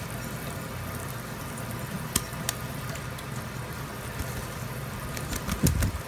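Water running steadily into a kitchen sink as an African grey parrot bathes, with a couple of small splashes about two seconds in. Just before the end the parrot beats its wet wings in the water, a loud flurry of flaps and splashing.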